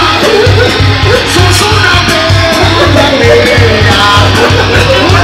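Loud rock music with a steady pounding beat, and a voice singing or shouting over it.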